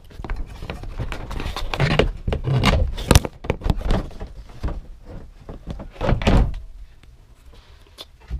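Hard plastic resin shed panels thunking, knocking and scraping as they are handled while a roof bracket is fitted, with a sharp knock about three seconds in.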